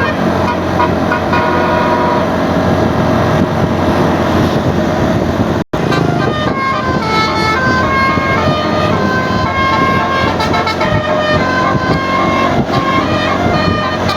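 Bus basuri telolet horn playing a tune of stepped, held tones over a steady low rumble. The sound cuts out for an instant about halfway through.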